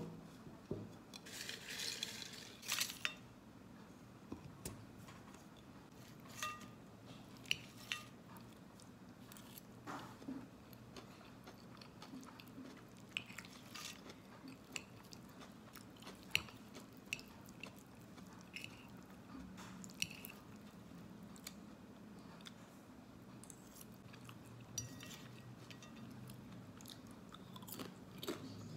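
Close-up eating sounds: a person chewing and crunching a shrimp and spinach stir-fry with crispy fried pieces, with scattered light clinks of a metal fork against a ceramic bowl, over a faint low hum.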